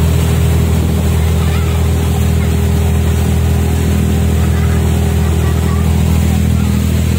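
Small passenger ferry's engine running steadily under way, with water churning and rushing in the wake behind the boat.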